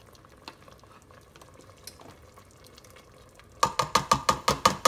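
Quiet at first, then about three and a half seconds in a fast run of ringing clinks, about eight a second, as a spoon knocks and scrapes thick barbecue sauce out of a glass measuring cup.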